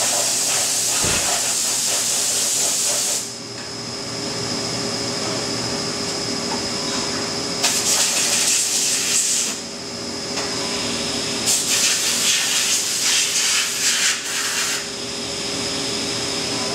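Flood coolant spraying and hissing inside a CNC mill's enclosure, cutting off about three seconds in, over a steady machine hum. Two later bursts of spray hiss, each lasting about two to three seconds.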